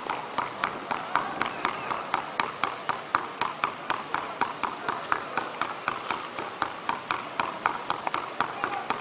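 A basketball being dribbled rapidly on a hard court, about three to four bounces a second in an even, unbroken rhythm.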